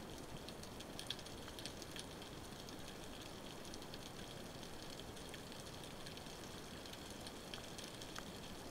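Underwater ambience as heard by a submerged camera: a steady low hiss with scattered faint clicks and crackles.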